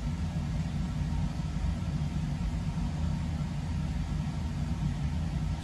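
A steady low mechanical hum, even and unbroken, such as a fan or motor running.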